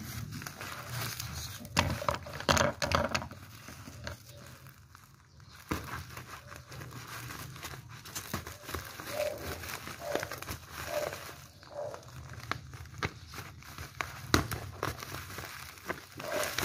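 Packaging being opened by hand: irregular crinkling, crackling and tearing, with louder bursts about two seconds in and again near the end.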